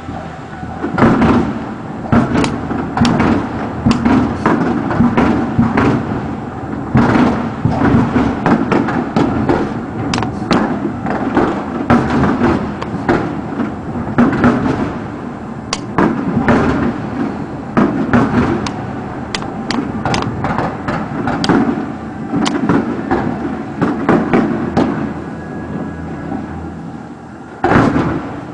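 Aerial fireworks bursting in a dense, irregular barrage of bangs over a continuous rumble, with an especially strong bang near the end.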